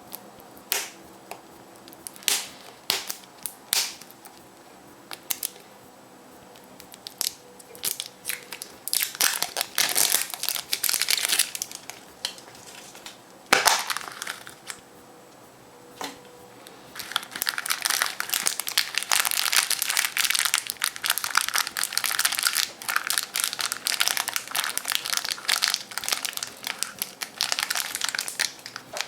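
Foil wrapper of a Kinder Surprise chocolate egg being handled, unwrapped and crumpled. At first there are scattered sharp crackles, then stretches of dense crinkling. A single loud sharp crack comes about halfway through.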